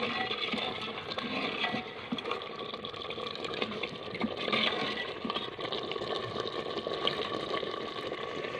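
Chicken curry simmering and bubbling in a clay pot, with a metal utensil stirring through it and now and then clicking against the pot.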